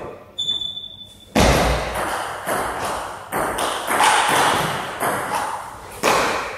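Knocks and thuds echoing around a large hall. A brief ringing ping comes near the start, a heavy low thud about a second in, then several irregular lighter knocks.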